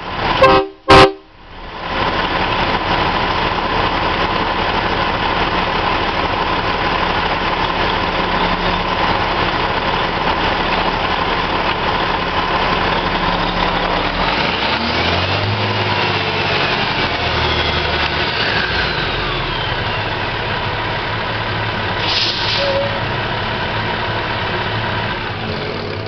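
Two very short, loud blasts of an air-powered train horn with metal trumpets, about half a second and a second in, sounding several pitches at once. After them comes a steady rushing noise with a faint hum, and some faint rising and falling tones near the middle.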